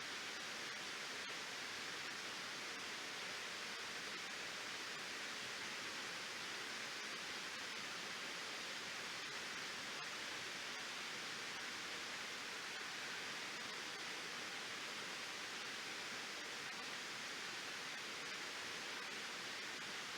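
Waterfall pouring at a reservoir dam, a steady rushing of water with no changes.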